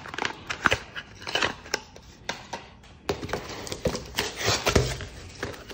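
Cardboard packaging being handled: a small paper box and a cardboard shipping box rustling and scraping, with many light knocks and clicks.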